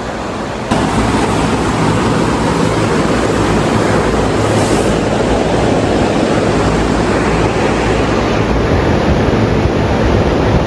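Wind buffeting the microphone: a loud, steady rushing noise that cuts in abruptly about a second in.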